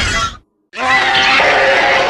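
Flying-monster sound effect: a harsh, screeching creature call cuts off about half a second in, then after a short gap a second call starts and carries on.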